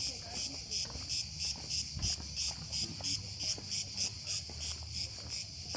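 A chorus of insects shrilling in high, even pulses, about five a second.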